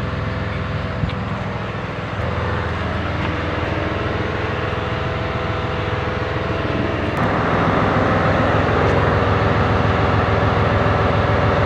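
A truck engine running steadily, getting a step louder about two seconds in and again about seven seconds in.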